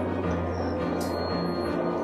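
Background music with a low bass line.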